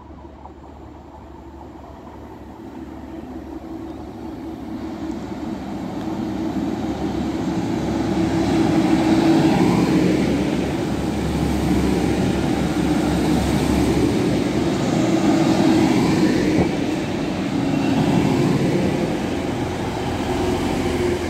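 A TransPennine Express multiple-unit train runs in along the platform. Its rumble builds over the first several seconds, then the wheels on the rails and a steady drone stay loud as the carriages go by.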